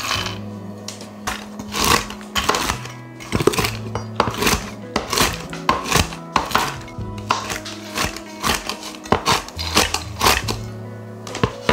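Chef's knife chopping walnuts on a wooden cutting board: a run of sharp, irregular knocks, about two a second, with background music.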